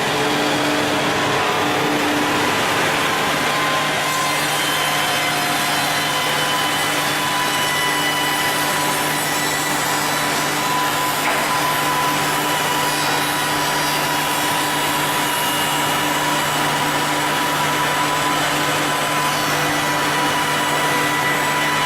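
MJX 243B double-end tenoning machine running steadily, its cutters working wood, with a steady whine over the machining noise.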